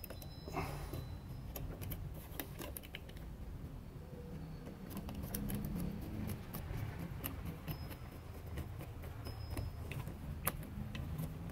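Small irregular clicks and scrapes of a screwdriver turning the terminal screw of a plastic single-pole light switch as a wire is clamped under it, with the switch and wires being handled; one sharper click comes near the end.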